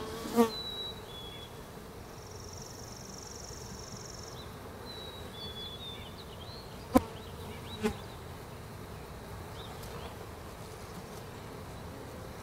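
Honey bees buzzing steadily around a freshly installed hive, with a few sharp wooden knocks as the inner cover is set and adjusted on the hive body: one just after the start and two about seven and eight seconds in.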